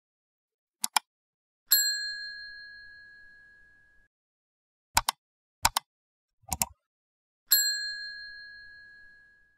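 Subscribe-animation sound effects: four quick double mouse clicks and two bright bell dings, one near the start and one near the end, each ringing out for about two seconds.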